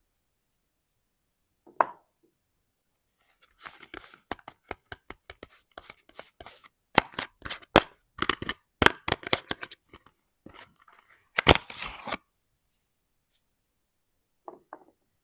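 Soap packaging being torn and unwrapped by hand: a dense, irregular run of crinkles and sharp snaps from about three and a half seconds in, loudest near the end of the run, with a few isolated crackles before and after.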